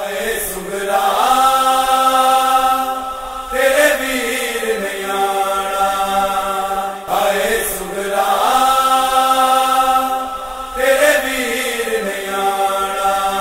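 Vocal chanting in long held notes over a steady drone, in phrases that swell and fall about every three and a half seconds: the introduction of a noha.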